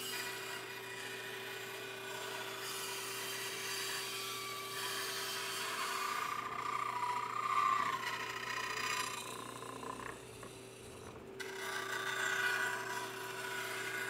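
Bandsaw running with a steady motor hum, its blade cutting through a wooden board along curved lines to remove the waste. The cutting noise eases off for a moment about ten seconds in, then picks up again.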